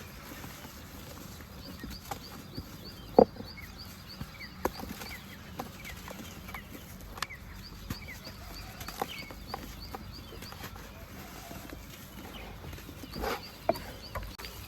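Scattered crisp cracks and taps of dry red dirt being crumbled, with one louder crack about three seconds in. Birds chirp in the background.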